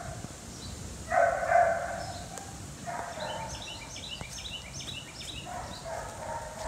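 Dogs whining in several drawn-out, high calls, the loudest about a second in, with small birds chirping rapidly in between.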